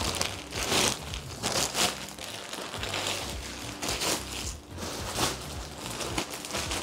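Clear plastic wrapping crinkling and rustling around a furniture cushion as it is handled and pulled out of its bag, in irregular bursts about once a second.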